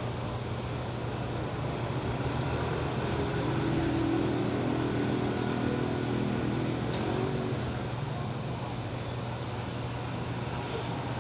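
Corded electric hair clippers buzzing steadily while cutting hair. In the middle, a passing vehicle's engine swells and fades over the buzz.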